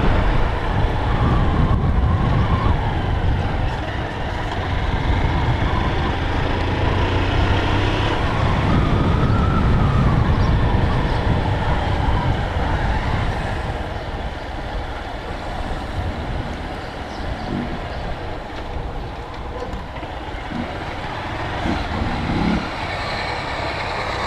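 Small-displacement motorcycle engine running as the bike rides slowly along a street, with a heavy low rumble of engine and road noise. It eases off and gets quieter about halfway through.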